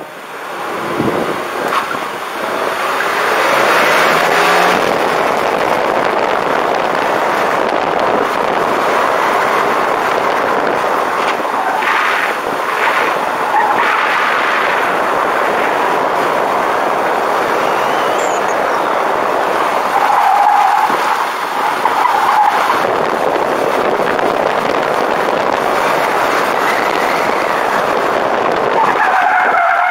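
Mercedes 190E autocross car pulling away hard from a standstill, its engine revving up, then a steady loud rush of road and wind noise as it is driven through the course. Tires squeal briefly a little after twenty seconds in and again near the end as the car corners hard.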